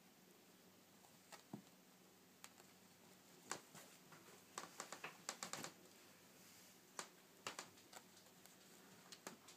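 Faint, irregular clicks and scratchy taps from a kitten playing on a fabric rug, its paws and claws catching the cloth, with a quick cluster in the middle and a few more near the end.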